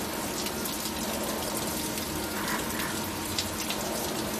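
Five-axis CNC milling machine cutting under flood coolant: a steady hiss of coolant spraying and splashing, over a steady machine hum with scattered small ticks.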